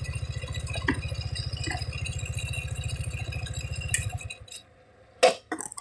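Car engine idling with a steady low pulse, heard from inside the cabin, then cutting out about four seconds in. A second later comes a single sharp knock.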